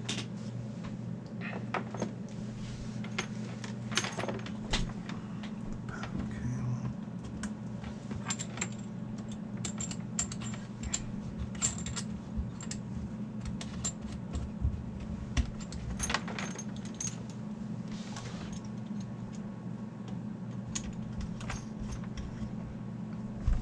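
Scattered clicks, taps and light rattles of cable plugs and connectors being handled as a radio is wired into a carpeted wooden speaker cabinet, over a steady low hum.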